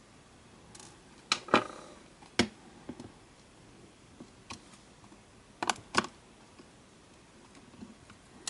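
Sharp plastic clicks and snaps from the case of a Sony TCD-D3 DAT Walkman being worked open, its lid released from the internal claw. About seven separate clicks, the loudest a pair about one and a half seconds in and another pair near six seconds.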